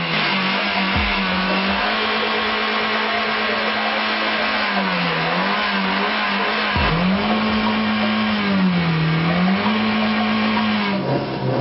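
Car engine revved hard while parked, held high at about 6,000 rpm in a steady drone. The revs dip briefly twice, drop sharply and climb straight back about seven seconds in, and fall away near the end.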